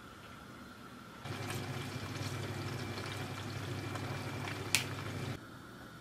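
Oven roasting chickens under its glowing element: a steady low hum with a sizzling hiss over it. It starts about a second in and cuts off abruptly about five seconds in, with one sharp click or pop just before it stops.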